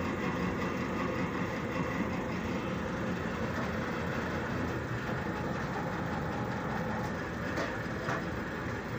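Hydraulic press running steadily with an even mechanical noise as its ram bears down on a steel excavator boom pin to straighten it.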